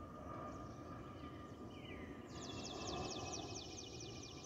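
Airbus A320 passing overhead: a steady whistle from the wing's fuel over-pressure protector (FOPP) cavities over a low jet rumble. About two seconds in, a small bird sings a fast, high trill for about two seconds, louder than the jet.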